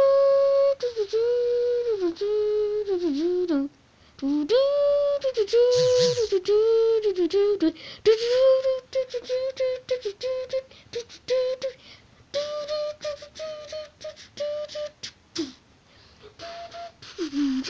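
Homemade wordless song: a single voice-like melody of held notes with upward and downward slides. From about halfway through, a rapid run of clicks plays along with it.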